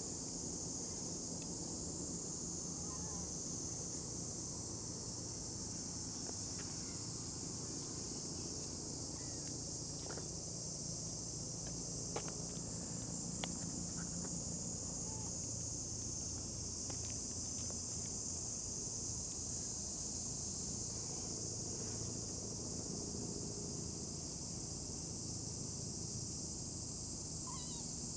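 Steady, unbroken high-pitched chorus of insects, a few faint ticks and short faint calls over it.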